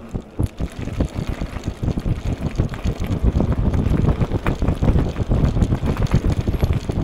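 Wind buffeting the microphone over the rumble and crunch of e-bike tyres rolling on a gravel path, getting louder about a second in as the bike runs onto the gravel.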